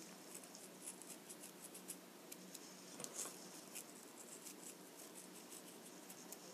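Faint scattered ticks and light patter of salt grains falling onto raw chicken thighs and a plastic cutting board, sprinkled by hand from a height, over a faint steady hum.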